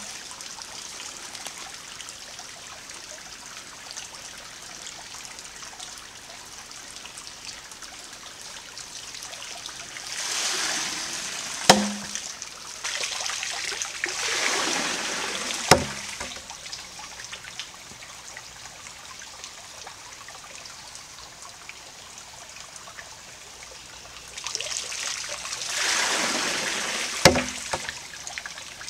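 Water-powered trip hammer: its wooden pestle knocks down onto a flat stone three times, each knock coming right after a rush of water spilling from the tipped trough end of the log beam. A creek trickles steadily underneath.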